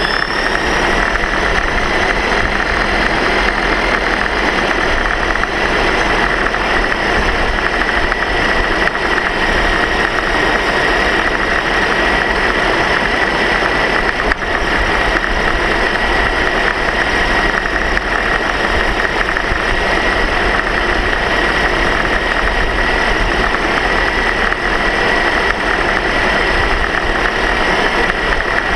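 A motor running at a constant speed, with a steady high whine over a continuous rushing noise.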